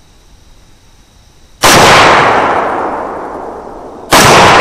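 Two rifle shots about two and a half seconds apart, fired at a hog through a thermal scope. Each is a sharp, very loud crack whose echo rolls away slowly over the next couple of seconds.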